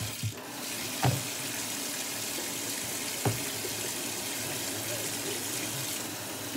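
Kitchen faucet running steadily into a stainless steel sink while hands are rubbed and washed under the stream. Two short knocks come about a second in and again about three seconds in.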